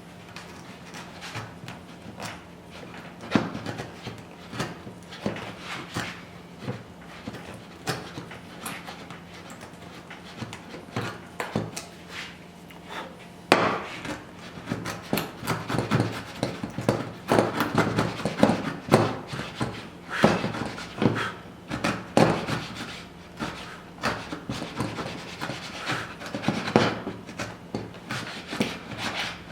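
Hand woodworking tools cutting wood for a lap joint: irregular sharp knocks and scraping strokes against the timber, getting busier and louder about 13 seconds in.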